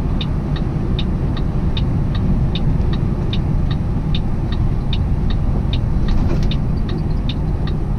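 Semi truck driving, heard inside the cab: a steady low engine and road rumble, with the turn signal ticking evenly about two and a half times a second.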